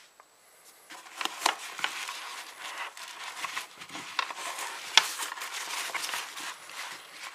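Fabric rustling and handling noise as a flashlight is pushed into a loop inside a fabric organizer, with scattered clicks and one sharp knock about five seconds in.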